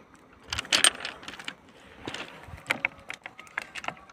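Plastic water bottle crackling and clicking in the hand as it is handled and laid against a steel rail, in a run of irregular sharp clicks that are loudest in the first second and a half.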